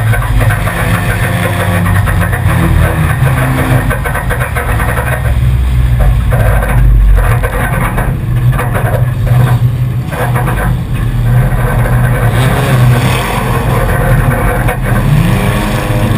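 Four-cylinder enduro race car's engine running hard under racing load, heard from on board the car. The note is loud and steady, with small shifts in pitch as the throttle changes.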